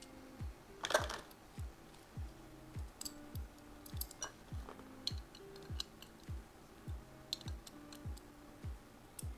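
Background music with a steady beat of about two a second, over scattered small metal clicks from a spanner wrench working the nozzle extension of an air duster gun. The sharpest click comes about a second in.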